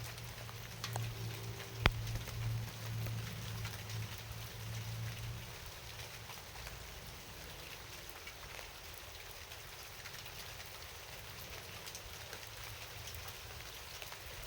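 Rain falling steadily with scattered drop ticks, and one sharp tap about two seconds in; a low hum underneath fades out after about five seconds.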